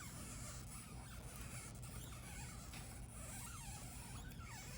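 Faint squeaky creaks of a stretch-release adhesive strip being pulled out from under a laptop LCD panel, over a low steady background hum.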